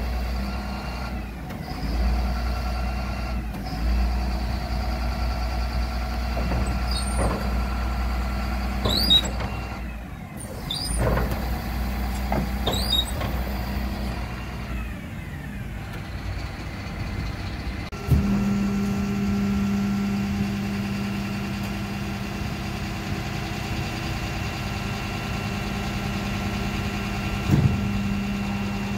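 A refuse truck's engine and hydraulic bin lift running as the lift arms are lowered and raised, with a few clanks and short squeaks from the lift. About two-thirds of the way through, a click is followed by a louder, steadier hum that runs on.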